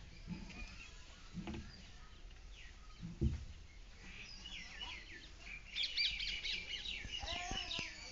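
Small birds chirping with short, quick falling notes, scattered at first and then busy in the last couple of seconds, with a few dull low thumps, the loudest about three seconds in.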